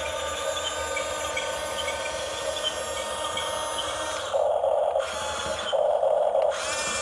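The small electric motors and plastic gearboxes of a Huina 554 toy RC bulldozer, running with a steady whirr. The whirr grows louder and harsher twice, about four and six seconds in.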